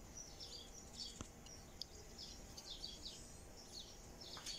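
Faint bird chirping, many short chirps in quick runs, over quiet outdoor background noise, with one sharp click about a second in.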